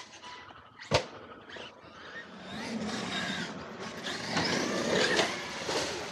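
Electric RC monster trucks running over dirt jumps: electric motor whine that rises and falls with the throttle, with tyres scrabbling on dirt. A single sharp impact knock about a second in.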